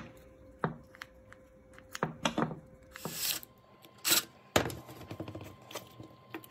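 Handling noise from a plastic mains plug: scattered light clicks and taps of the plastic casing, with two short scraping rubs about three and four seconds in.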